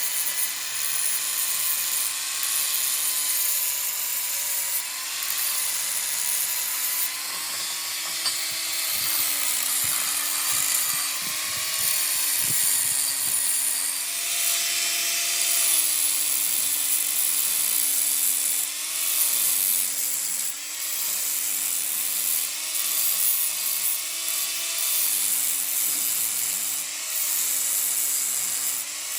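A power tool running steadily while working metal, with a high hiss over a held hum whose pitch dips slightly again and again as it takes load.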